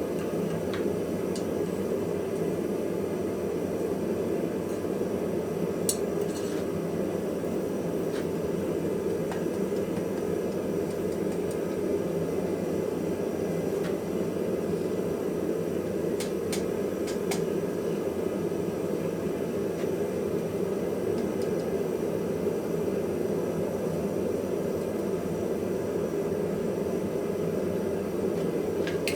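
Steady rushing shop noise with a few light metallic clinks of steel or tools, about six seconds in and twice more around the middle.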